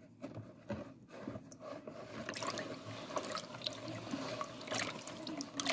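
A hand squelching and sloshing through a wet chermoula marinade in a bowl, pressing a saffron stock cube into it so that it dissolves: soft irregular wet squishes and small splashes.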